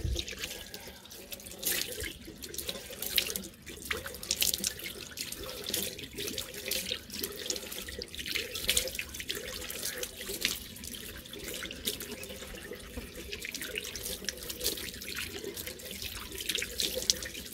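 Tap running into a washbasin while water is splashed onto the face by hand, with many short, irregular splashes over the steady flow.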